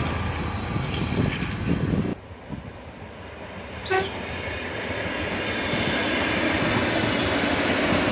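Electric commuter train sounding one short horn toot about four seconds in as it approaches, then its running noise building steadily as it draws close. Before that, loud rumble of a passing rail vehicle cuts off abruptly about two seconds in.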